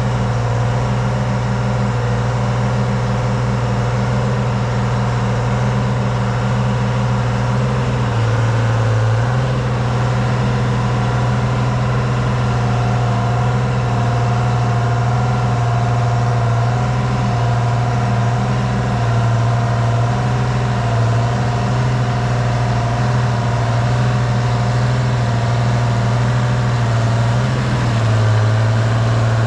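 The 1978 Hein-Werner excavator's diesel engine idling steadily, with a thin steady whine coming up over it about halfway through.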